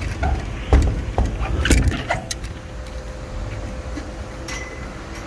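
A few sharp metallic clinks and knocks in the first two seconds, like tools or keys being handled at the unit, over a steady low hum of a running vehicle engine that carries on alone afterwards.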